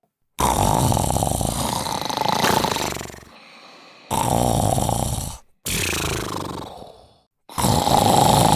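A person snoring: four long rattling snores in a row, the first nearly three seconds long and the others about one and a half seconds each, with short pauses between.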